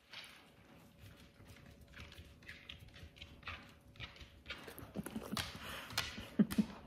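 A dog snuffling and sniffing close up as it is hugged, with rustling of fur and clothing. The short puffs and rustles grow busier and louder over the last few seconds.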